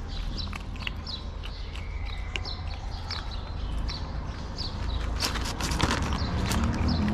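Cats eating wet cat food from plastic tubs close by: a quick run of wet chewing and smacking clicks, busiest about five to six seconds in.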